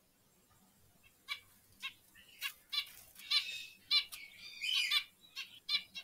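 Zebra finches calling: a string of short calls, about two a second, beginning about a second in, with a couple of longer calls around the middle.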